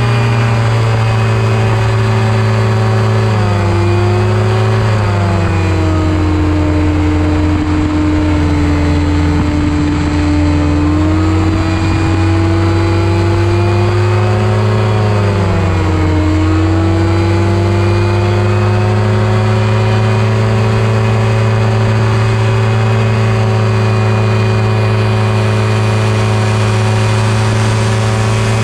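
Engine and propeller of an open-frame ultralight aircraft running in flight, a steady loud drone. Its pitch sags about four seconds in and again about sixteen seconds in, each time climbing back up as the engine speed recovers.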